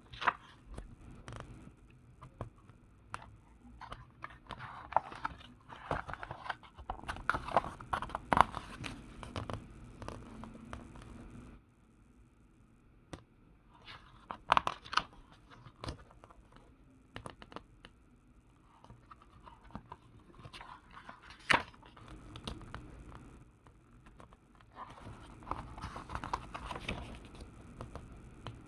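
Paper catalogue being handled and its pages turned: irregular rustling and crinkling with sharp clicks, in several bursts separated by quieter pauses.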